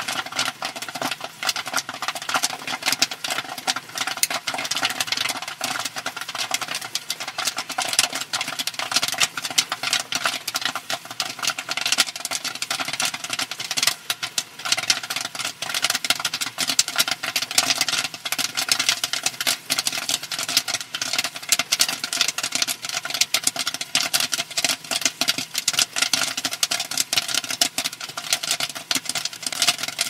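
Theatre-style popcorn machine popping corn: a dense, rapid, irregular crackle of kernels bursting in the kettle, over the machine's steady hum.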